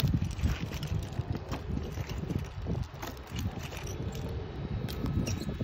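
Wind buffeting the microphone, with scattered knocks and clicks as climbing spurs (gaffs) are kicked into and pulled out of a wooden utility pole and fall-restraint belt hardware clinks on the way down.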